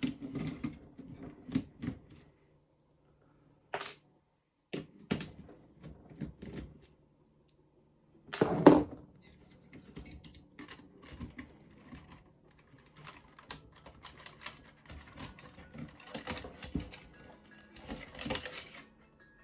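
Irregular clicks, taps and light clatter of hands working on an original Xbox's motherboard, unplugging connectors and taking out its screws, with one louder knock about eight and a half seconds in.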